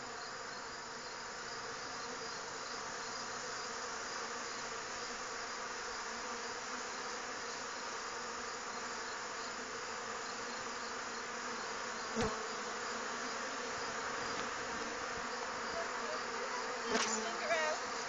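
Many honey bees buzzing steadily in a dense cloud around a hive that is being robbed by bees from other hives during a nectar dearth. A single brief knock about twelve seconds in.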